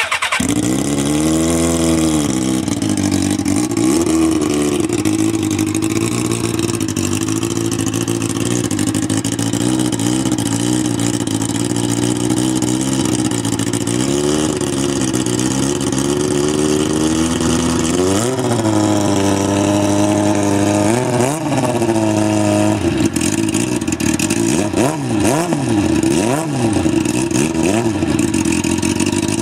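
2000 Kawasaki ZX6R's inline-four engine revved through one of the exhausts under comparison: a rev just after the start, a long steady idle, two bigger revs about two-thirds of the way in, then a run of quick throttle blips to the end.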